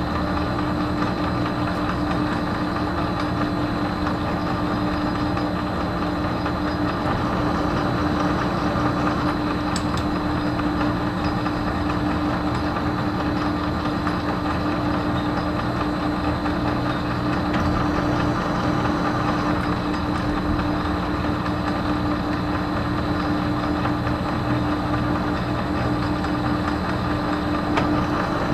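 Metal lathe running steadily at around 300 RPM, with its motor and gear train humming, during a thread-cutting pass on stainless steel.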